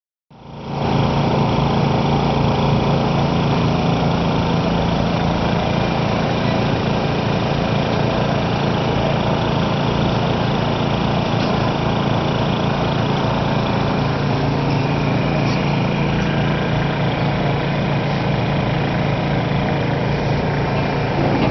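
A small engine running steadily at a constant speed, starting abruptly as the sound cuts in.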